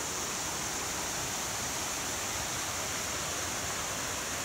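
River water running over small cascades and waterfalls into pools: a steady, even rush.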